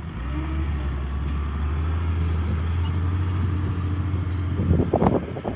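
Diesel engine of a heavy earthmoving machine running with a steady low drone. Near the end comes a short burst of sharp, knocking noises.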